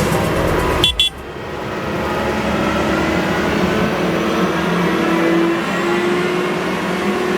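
Farm machinery engine running steadily with a droning tone that rises slightly about halfway through, after music cuts off about a second in.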